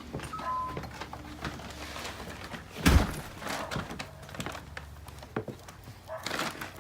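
A loud, heavy thump about three seconds in, among scattered lighter knocks and clicks, with two short high tones near the start.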